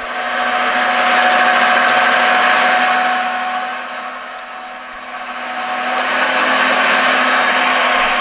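Electronic engine-sound module of a 1/14-scale RC hydraulic excavator playing a simulated diesel engine through its speaker, turned up loud. It eases off about four seconds in, with two small clicks, then rises again.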